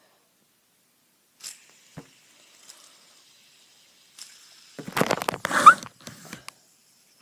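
Fidget spinners being handled and fitted together: a few light clicks, then a burst of clicking and clattering about five seconds in with a brief rising squeak, over a faint steady high whir.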